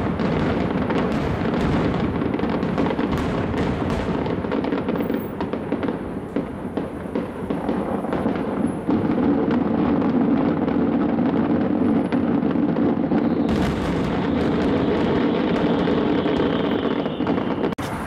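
Fireworks display: a dense, almost continuous barrage of bangs and crackling bursts, turning harsher and brighter about four seconds before the end.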